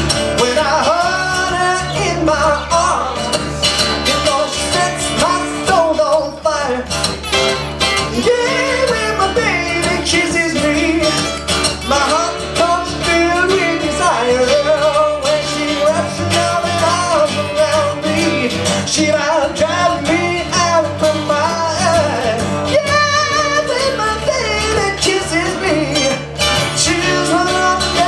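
Live acoustic music: a man singing lead to two acoustic guitars.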